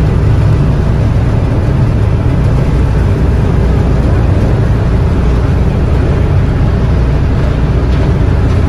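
High-speed passenger ferry's engines running steadily as the boat pulls away from the pier: a loud, even low rumble with a hiss above it.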